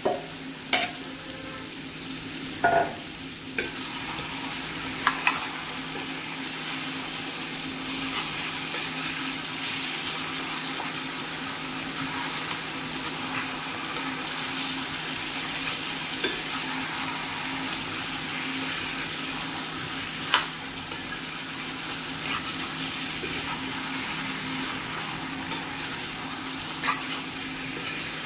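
Mutton and sliced onions in masala sizzling in a black kadai while being stirred and turned with a spatula, a steady frying hiss. Sharp knocks of the spoon and spatula against the bowl and the pan rim come a few times in the first seconds and now and then after.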